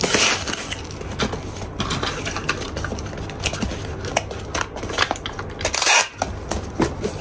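Packing materials and small packaged items being handled on a table: a run of light clicks and taps, with plastic wrapping crinkling now and then.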